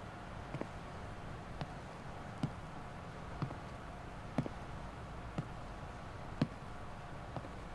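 Faint sharp clicks, evenly spaced about once a second, over a low steady hiss.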